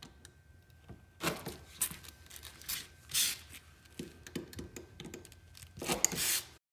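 Heat-shield wrap being cut: a few short cutting strokes with crinkly handling noise between them, ending abruptly near the end.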